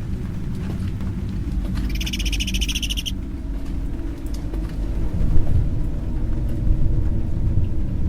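A low, steady rumble, with a shrill, rapidly pulsing trill-like creature call about two seconds in that lasts about a second.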